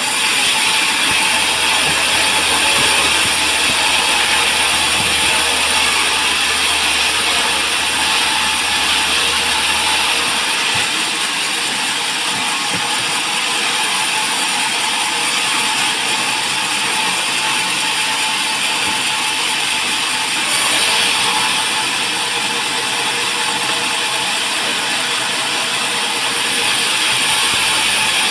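Band sawmill running steadily: a continuous mechanical hiss and whine. A low hum drops out about ten seconds in and comes back near the end.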